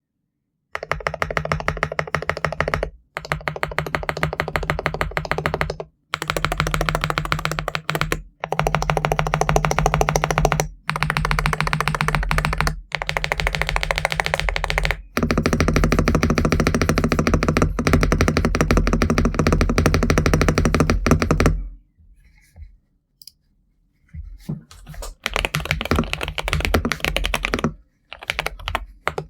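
Fast typing on a GMK81 mechanical keyboard fitted with Akko V3 Cream Yellow Pro linear switches: rapid keystroke clacks in runs of a few seconds with brief breaks, and an almost quiet pause of about two seconds about three-quarters of the way through.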